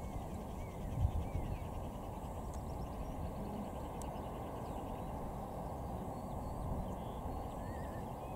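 Steady, distant low rumble of a four-engined BAe 146 jet airliner rolling out on the runway after landing, with small birds chirping and a brief low thump about a second in.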